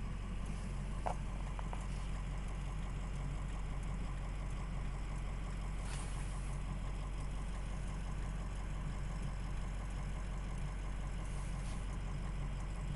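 A car engine idling steadily, heard from inside the vehicle.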